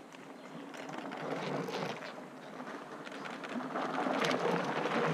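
Mountain bikes riding past on a dirt trail: tyres rolling over dirt with chain and freewheel clicking and rattling. It gets louder toward the end as the riders come close.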